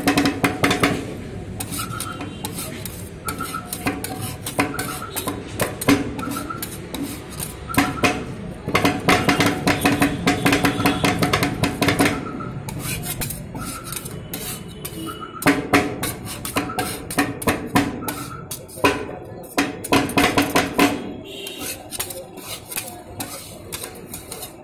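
Two metal spatulas chopping and scraping on a stainless-steel rolled-ice-cream cold plate, breaking Oreo biscuits into the freezing cream mix: bursts of rapid clicking taps, with quieter scraping between them. Background music plays underneath.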